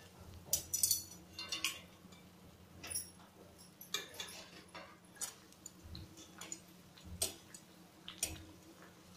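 Metal tongs and a wire spider strainer tapping and clinking against an aluminium kadhai as fried bread slices are turned and lifted out of the oil, in scattered, irregular light ticks.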